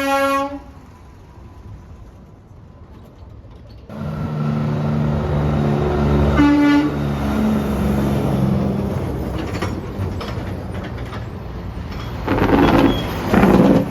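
A truck's train horn blasting and cutting off just after the start, then a truck's diesel engine running loudly as it passes, with a short horn toot about halfway through and two loud bursts of noise near the end.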